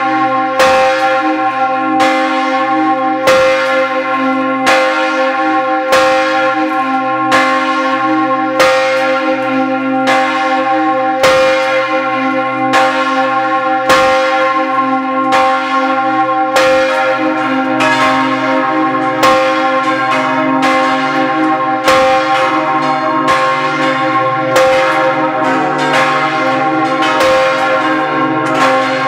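The bells of St. Nikolaus parish church in Tannheim ringing together in a full peal. Strokes follow one another in a steady, even stream, each ringing on into the next, with several bells of different pitch sounding at once.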